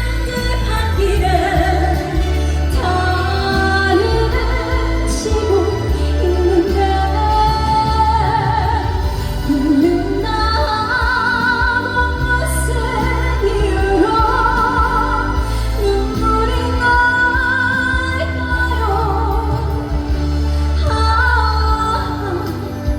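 A woman sings a slow Korean ballad with vibrato over backing music with a steady bass line.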